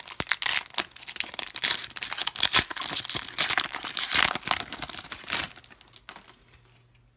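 Foil wrapper of a Panini Contenders football card pack being torn open and crinkled as the cards are pulled out; the crackling stops about five and a half seconds in.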